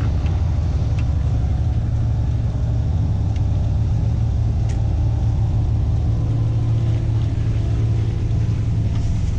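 Vehicle engine running steadily with a constant low hum, no revving.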